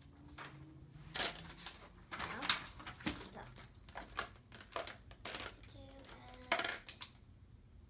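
Plastic felt-tip markers rattling and clicking against each other in a cup as a hand rummages through them, with paper handled in between; a series of short, uneven clicks and rustles.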